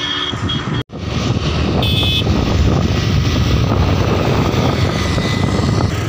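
Wind buffeting the microphone outdoors: a loud, steady low rumble, broken by a short dropout just under a second in, with a brief high tone about two seconds in.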